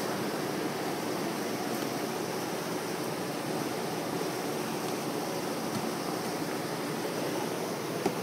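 Steady rushing background noise, with one short click near the end.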